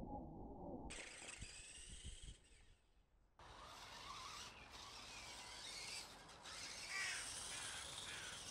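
For about the first second, the RC truck's twin 27-turn brushed electric motors whine, rising and falling in pitch, as it drives over dirt, heard muffled. After a short near-silent gap, outdoor background with crows cawing several times.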